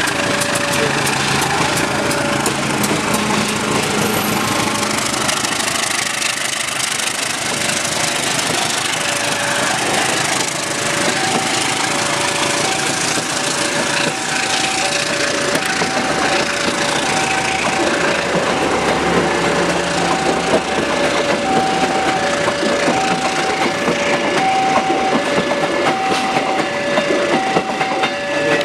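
Railway level-crossing alarm beeping steadily in two alternating notes over the loud, continuous rattle and rumble of a passing train.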